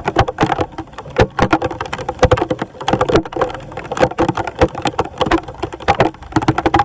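Water splashing, with rapid, irregular clicks and knocks from debris being cleared out of a clogged street drain.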